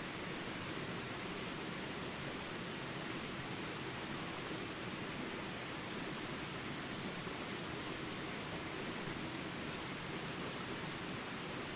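Steady chorus of insects such as crickets, a continuous high-pitched shrill at two pitches, with a faint chirp repeating about once a second.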